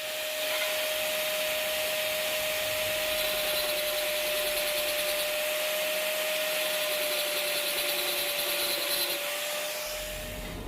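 Electric angle grinder running steadily on steel, a constant motor whine over a dense high hiss, its pitch sagging slightly near the end before it cuts off.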